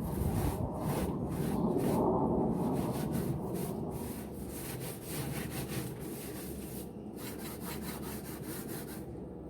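Scrubbing strokes on a barbecue grill as it is cleaned: a rhythmic back-and-forth rubbing, about three strokes a second.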